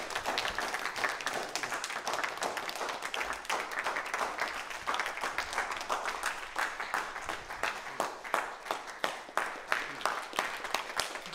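Audience applauding, many hands clapping at once, thinning toward the end into more separate claps.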